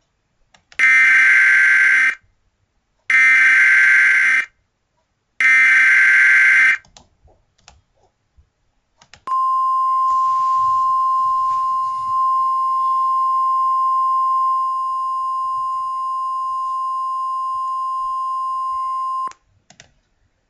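Emergency Alert System broadcast tones: three bursts of digital header data, each about a second and a half long and a second apart. After a short gap comes a single steady attention tone, held for about ten seconds, which cuts off sharply.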